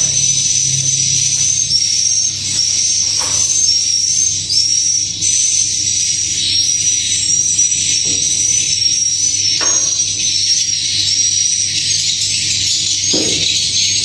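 Dense, high-pitched twittering of edible-nest swiftlets, with a short chirp repeating about once a second. A few faint knocks come through near the middle and end.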